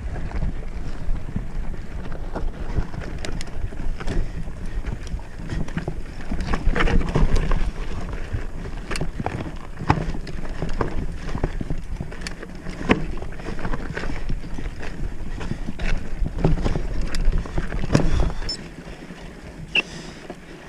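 Mountain bike riding over a rocky dirt trail: wind buffeting the microphone under frequent clicks and knocks from the bike rattling over stones. It quiets down near the end.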